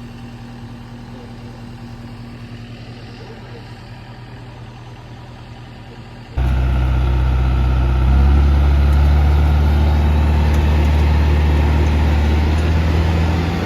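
Vehicle engine idling steadily. About six seconds in it cuts abruptly to a much louder engine held at raised revs, which rise once more and then drop away at the end.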